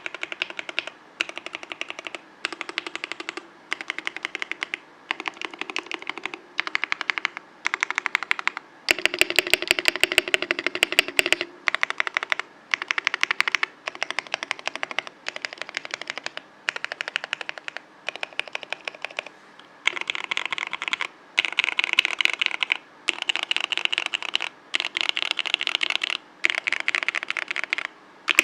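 Frog TKL mechanical keyboard with lubed TTC Wild linear switches on an aluminium plate, typed on in quick runs of keystrokes about a second long with brief pauses between them. A louder, denser clatter of keys comes about a third of the way in.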